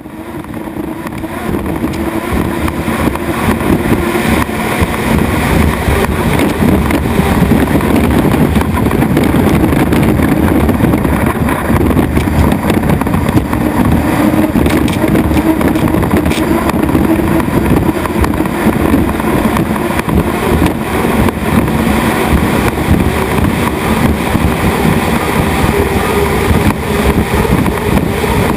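Turbine-powered unlimited hydroplanes racing, a loud steady rush of engine noise that fades in over the first few seconds and then holds.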